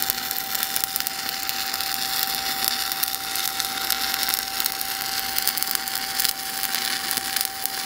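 Shielded metal arc (stick) welding with a 1/8-inch E7018 electrode: the arc crackles steadily as a vertical-up bead is run with a small circular weave.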